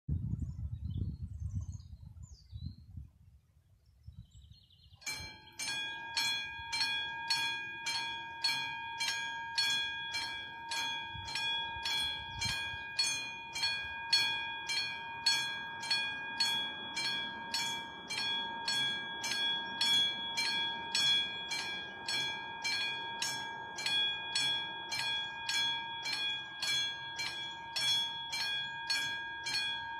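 Level-crossing warning signal's bell (VÚD 62 signal, classic bell tone) starts about five seconds in and rings steadily at about two strokes a second, the warning that a train is approaching. Before it starts there is a low rumble.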